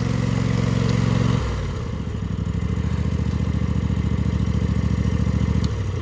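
Small gasoline engine of a pickup-mounted fire-fighting pump unit, described as much like a lawnmower engine, running steadily. About one and a half seconds in it drops to a slower, chugging beat, and near the end it cuts out and winds down.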